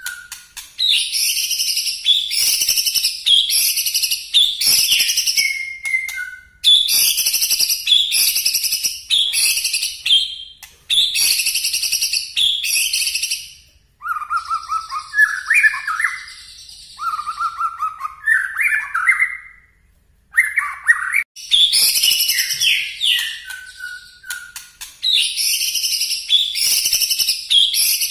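White-rumped shama (murai batu) singing loudly: rapid, shrill, high-pitched phrases repeated in runs, the piercing bursts bird keepers call "nembak" (shooting). About midway there is a stretch of lower warbling notes before the shrill phrases return.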